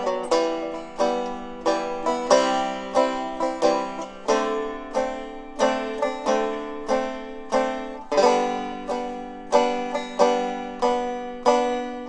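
Background music: a plucked-string tune, its notes picked at about two a second, each ringing and fading.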